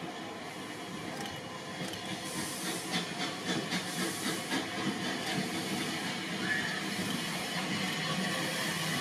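Steam locomotive hissing steam. A rhythm of soft beats, about two to three a second, sets in a few seconds in, and the sound grows steadily louder.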